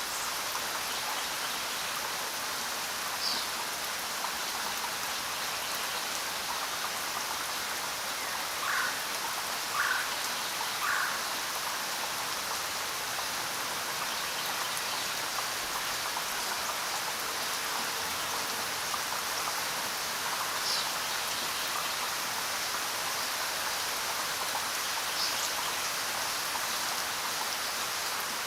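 Steady rain falling, an even hiss with no let-up. A few brief, sharper sounds stand out over it, including three in a row about a second apart.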